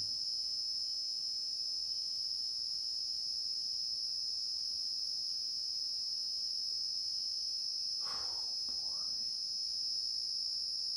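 A loud chorus of night insects making an unbroken, steady, high-pitched drone.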